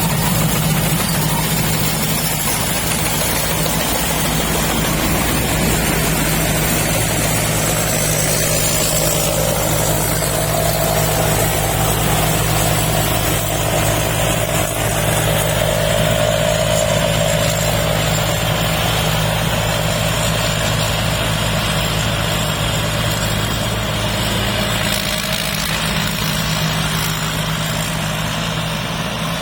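Combine harvester engine running steadily with an even low hum.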